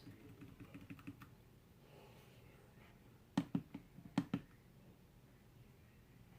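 Keys clicking on a computer keyboard: a few light clicks, then two quick clusters of louder clicks about three and a half and four seconds in.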